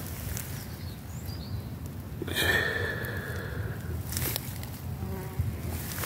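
A flying insect buzzing briefly a couple of seconds in, over a steady low rumble on the microphone.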